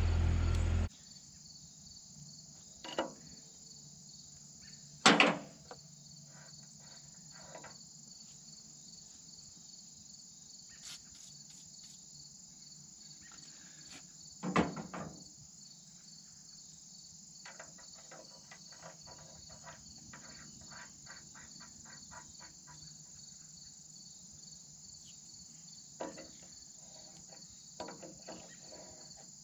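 Insects chirping in a steady, high, evenly pulsing drone, with scattered metallic clicks and knocks of a wrench against hydraulic fittings on a loader's diverter valve; the loudest knocks come about five seconds in and again around fifteen seconds, with a run of small clicks a little later and a few more near the end.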